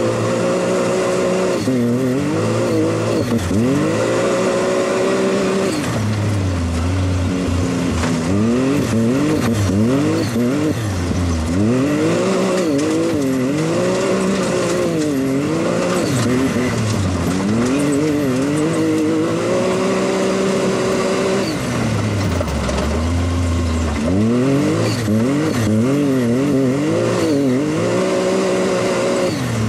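Can-Am Maverick X RC Turbo RR side-by-side's turbocharged three-cylinder engine, revving up and falling back over and over as it is driven hard and slid around on loose dirt.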